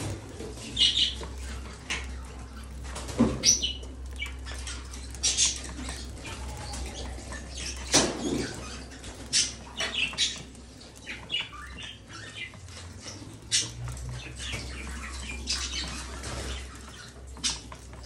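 A flock of budgerigars chirping and chattering, with brief wing flutters, in short irregular bursts.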